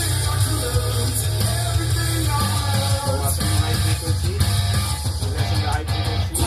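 A song with singing and a strong, steady bass, playing through a pair of PreSonus Eris 4.5 studio monitor speakers as they are tested.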